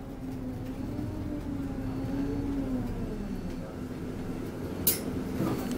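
Alexander Dennis Enviro200 MMC single-decker bus heard from inside at the front: a steady engine and drivetrain drone whose pitch rises slightly, then falls about three seconds in as the bus slows. A brief sharp click sounds near the end.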